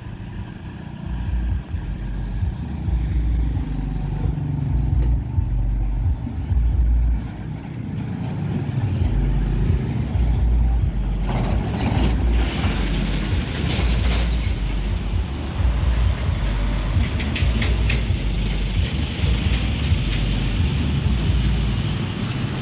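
Road traffic at a railway level crossing: truck and other vehicle engines passing over a heavy low rumble. From about halfway, a run of sharp clacks and rattling comes as a heavy flatbed truck rolls over the rails.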